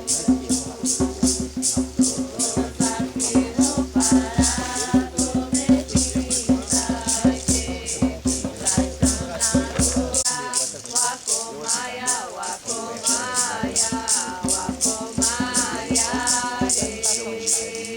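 Ceremonial songs with a hand rattle shaken in a steady rhythm, about three shakes a second, and a group of voices singing a chant. A low pulsing beat accompanies them and stops about ten seconds in.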